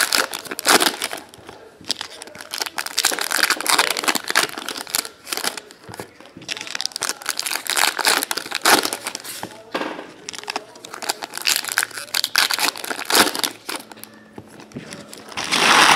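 Foil trading-card pack wrappers crinkling and tearing as packs are opened by hand, in irregular bursts of rustling. Near the end a louder, steady rushing noise sets in.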